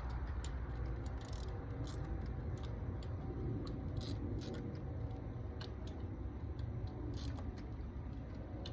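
Hand ratchet clicking in short, irregular runs while tightening the T30 screws on an engine's ignition coil pack, over a steady low background rumble.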